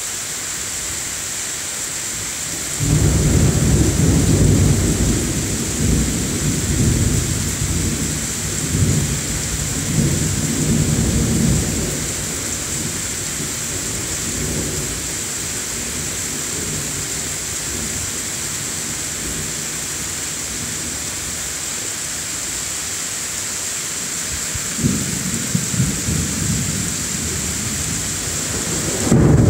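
Rain falling steadily with a hiss. About three seconds in, a long rolling rumble of thunder that swells and fades over roughly nine seconds, and another thunder rumble begins near the end and grows louder.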